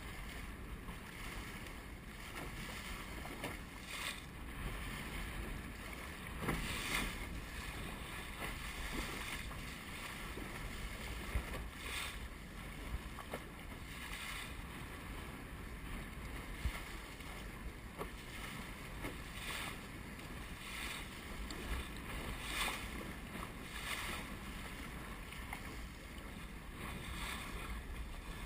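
Water rushing along the hull of a Star keelboat sailing heeled over, with the bow slapping and splashing through the chop every couple of seconds. Wind buffets the microphone underneath as a low rumble.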